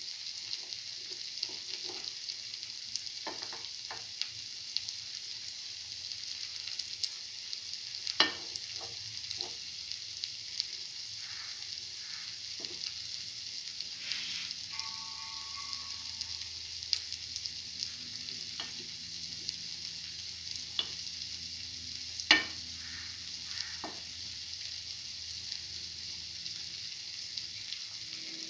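Fritters shallow-frying in oil in a cavity pan: a steady sizzle with scattered small crackles, and two sharper cracks, one about 8 seconds in and one about 22 seconds in.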